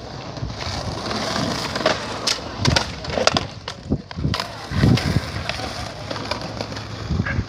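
Skateboard wheels rolling, with several sharp knocks of the board hitting the ground; the loudest comes about five seconds in.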